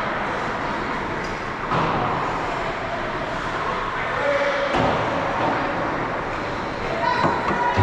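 Ice hockey play on an indoor rink: a steady wash of skates scraping the ice, broken by a few sharp knocks of sticks and puck.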